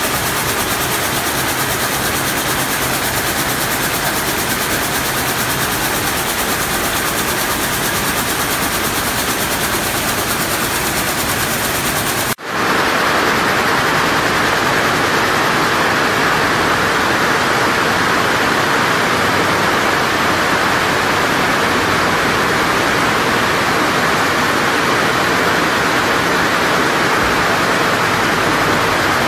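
Rows of gauze weaving looms running together, a loud, steady, dense mechanical rattle with fast fine ticking. About twelve seconds in the sound changes abruptly and becomes a fuller, brighter din.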